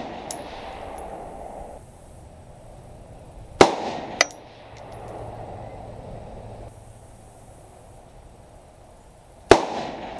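Two single shots from an AR-15 rifle, about six seconds apart, each followed by a short echo. A lighter, sharp metallic clink comes about half a second after the first shot.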